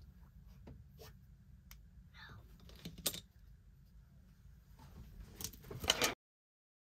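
Light clicks and taps of costume jewelry and a small metal tool being handled on a cloth-covered tabletop, a few scattered ones and a quick cluster near the end, then the sound cuts out abruptly.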